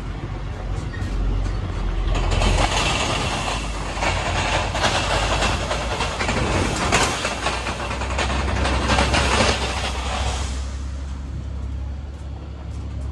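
Open-sided tour trolley moving along a dirt track: a steady low engine drone throughout, with a loud rattling rush of noise from about two seconds in until about ten seconds in.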